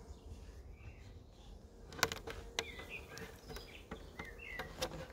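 Honeybees humming faintly in a hive as its wooden inner cover is pried up and lifted off, with a few sharp wooden clicks and knocks from about two seconds in. Birds chirp faintly in the background.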